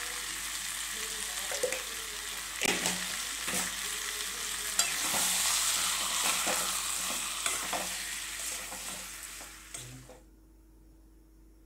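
Boiled potatoes and spice masala sizzling in oil in a metal karai while a spatula stirs them, scraping and knocking against the pan, as the masala is fried down onto the potatoes. The sizzling stops suddenly near the end.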